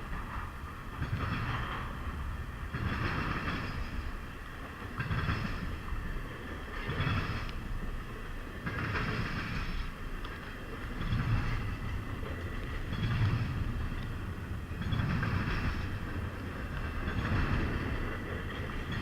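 Freight train rolling past, its cars going by with a rhythmic surge of wheel noise about every two seconds over a steady rumble.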